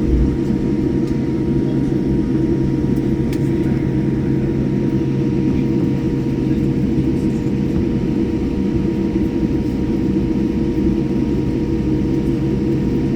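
Steady low rumble of a running vehicle engine with a constant droning hum, unchanging throughout.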